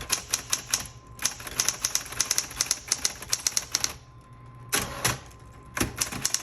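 Smith Corona Coronet Automatic 12 electric typewriter being typed on in two quick runs of keystrokes, several strikes a second, under the steady hum of its running motor. The typing breaks off about four seconds in, leaving the hum and a few more scattered strikes.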